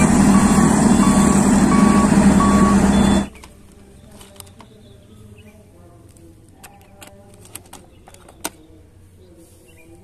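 A sand-laden dump truck's diesel engine running close by, a steady low drone with a short high beep repeating about every two-thirds of a second. It cuts off abruptly a little over three seconds in, leaving faint clicks and knocks of plastic toy trucks being handled.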